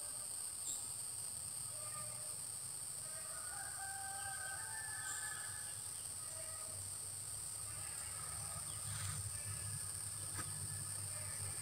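Outdoor ambience of a steady, high-pitched insect drone, with a rooster crowing in the distance about three to five seconds in. A low rumble grows near the end.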